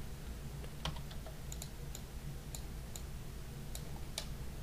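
Scattered, irregular clicks of a computer keyboard and mouse being worked, about ten in all, over a steady low hum.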